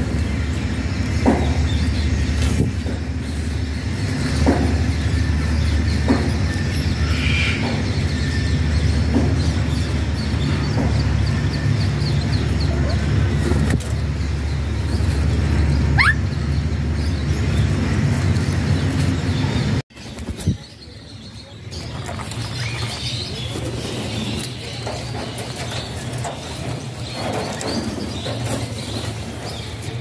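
Alexandrine parakeets giving occasional short chirps and one rising whistle over a steady low rumble. The sound briefly cuts out about two-thirds of the way through.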